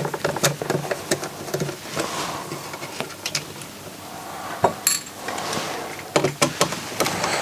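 Irregular small clicks, taps and light knocks of a plastic CD-player disc-loader frame and small tools being handled on a workbench, with one sharper knock near the middle.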